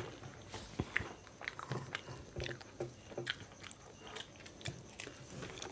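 Fuchka (pani puri) being eaten: crisp puri shells bitten, crunched and chewed, with a run of small, irregular crackles and clicks.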